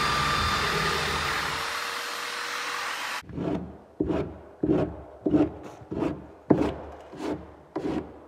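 Electric belt sander running on plywood, stopping abruptly about three seconds in. Then hand sanding of plywood with a sanding block: about eight even rubbing strokes, roughly three every two seconds.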